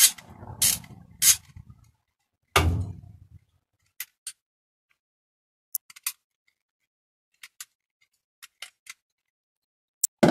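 Clicks and knocks of a plastic BMX flat pedal being dismantled by hand with a socket and adjustable wrench: three sharp clicks in the first second or so, a heavier knock about two and a half seconds in, then sparse light ticks of small parts being handled, and another knock at the end.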